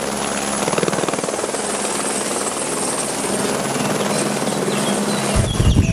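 Helicopter flying low, its rotor beating in a rapid, steady chop. Near the end a louder, deeper rumble joins in.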